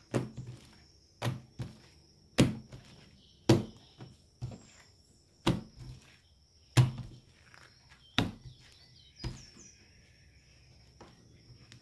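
Homemade slime being kneaded and pressed down by hand on a plastic tablecloth: a string of dull thuds at uneven intervals, roughly one a second.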